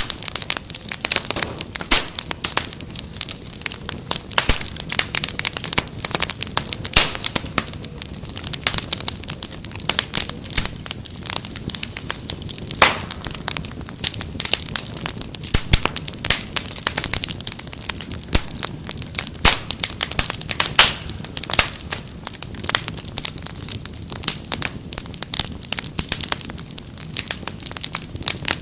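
Wood fire crackling in a fireplace: a dense, irregular run of sharp pops and snaps over a soft hiss.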